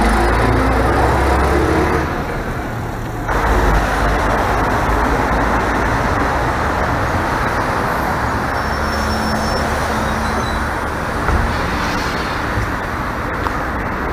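Articulated city buses' diesel engines and road noise: a red Ikarus 280.08 pulls away from the stop with a deep engine rumble. After a sudden change about three seconds in, a modern articulated city bus runs as it pulls in and stands at the stop.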